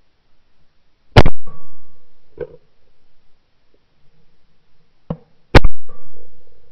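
Two shots from a 28-gauge shotgun, fired right at the gun-mounted camera's microphone, about four and a half seconds apart, each dying away over about a second. Two fainter bangs come between and just before them.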